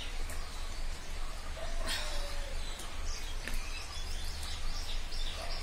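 Small birds chirping in the background: a rapid series of short high chirps, about three or four a second, starts about four seconds in, over a steady low hum. A single sharp click comes about two seconds in.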